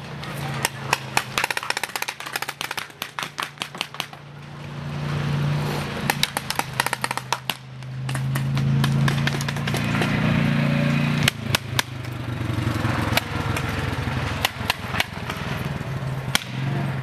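Paintball markers firing in rapid strings of shots, several volleys back and forth, over a steady low drone.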